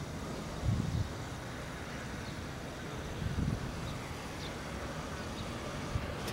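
Wind buffeting the microphone in low gusts, about a second in and again around the middle, over a steady outdoor background rumble.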